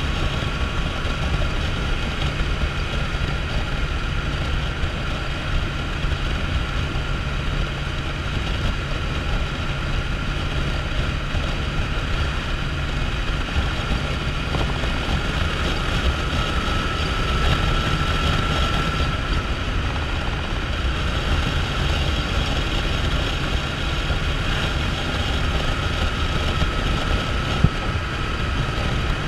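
Motorcycle cruising at a steady road speed: the engine note runs constant under wind rush over the microphone and tyre hiss on a wet road. There is a single brief click near the end.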